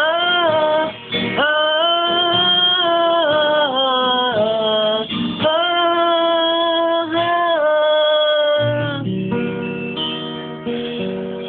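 Acoustic guitar strummed under a voice singing long, held notes that slide between pitches. About nine seconds in the voice stops and the last guitar chords ring on and slowly fade.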